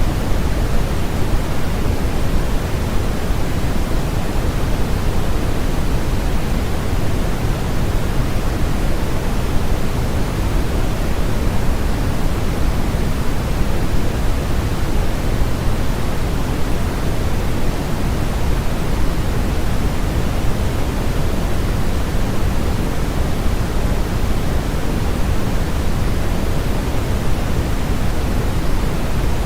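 Steady synthetic noise used for sleep masking: a constant, unchanging rush, heavier in the low end than in the highs.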